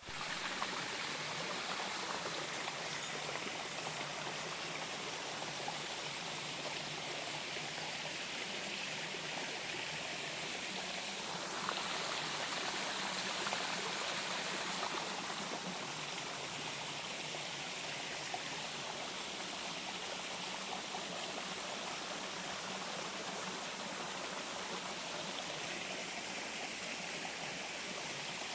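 Small waterfall splashing and rushing steadily, an even hiss of falling water.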